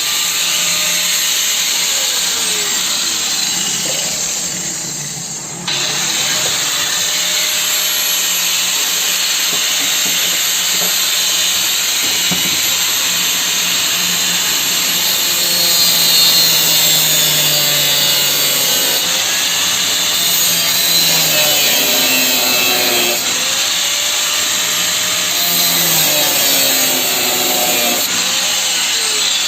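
Angle grinder running and cutting continuously, its motor pitch sagging and recovering as the disc is loaded. The sound eases off about four to five seconds in, then comes back suddenly.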